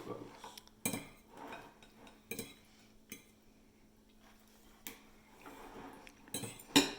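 Forks and spoons clinking and scraping against plates at a meal, a handful of separate sharp clicks a second or so apart.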